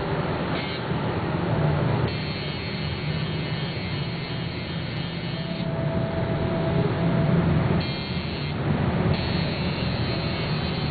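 Electric tattoo machine buzzing steadily as it works the needle into skin.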